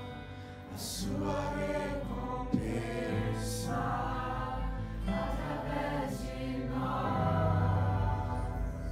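Acoustic guitar accompanying several voices singing a slow Portuguese worship song, a lead male voice with backing singers in harmony.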